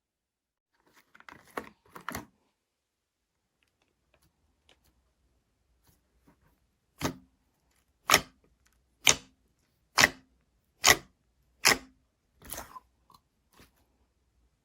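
A cluster of soft crackles, then a series of six sharp, crunchy clicks about a second apart, trailing off into a few quieter ones near the end.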